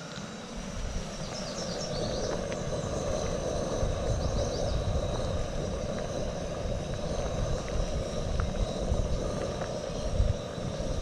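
Steady roar of an outdoor camp burner's flame under a large pot of soup at a rolling boil. A few short bird chirps come early on.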